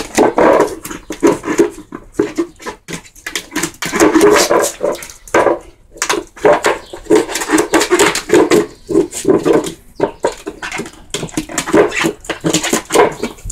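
Dog growling in short, irregular bursts while pawing and nosing its empty water bowl, which knocks and scrapes against the concrete floor with many sharp clicks.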